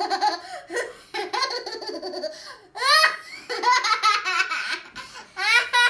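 A young girl laughing hard in several long bursts, breaking into quick repeated 'ha-ha' pulses near the end.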